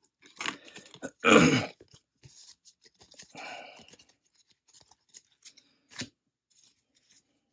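Bowman baseball cards being flipped through by hand, one sliding off the stack over the next, giving short papery swishes and light clicks. A louder brief rustle comes about a second in, and a sharp click near six seconds in.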